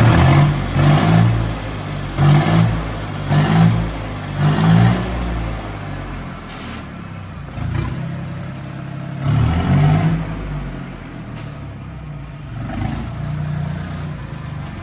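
John Deere 5305's three-cylinder diesel engine revved in short blips through a new straight steel exhaust silencer: about five quick revs in the first five seconds, then two more after a steadier stretch.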